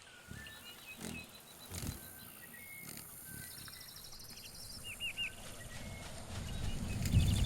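Animal calls: short high chirps, a quick trill and three curved whistled notes, over a low rumble that swells toward the end, with dull thumps about one and two seconds in.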